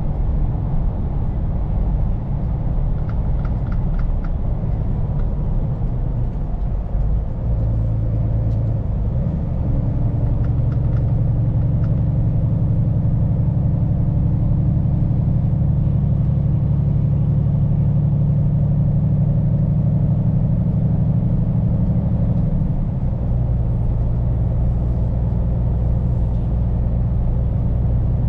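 Scania P410 truck's diesel engine pulling steadily on the road, over a haze of tyre and road noise. The engine note grows fuller about nine seconds in, dips briefly about 22 seconds in, then settles again. A faint high whistle rises and falls with it.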